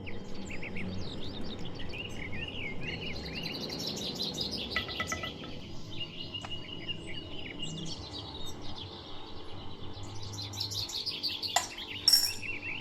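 Many small birds chirping and twittering together, with a sharp knock near the end followed by a brief clatter.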